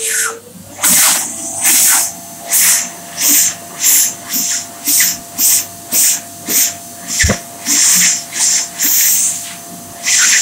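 phs Airstream Vitesse hand dryer blowing in short stop-start bursts of airy hiss, about one and a half a second, as a hand moving in and out of its sensor switches it on and off.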